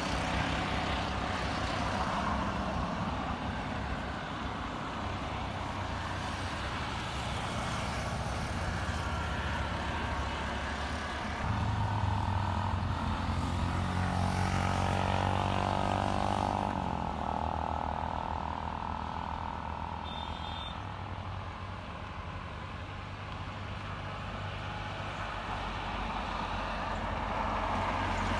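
Boeing 737-800's CFM56 jet engines at taxi power, heard from afar as a steady rumble. A louder low hum and a shifting higher tone come in about 11 seconds in and ease off about 17 seconds in.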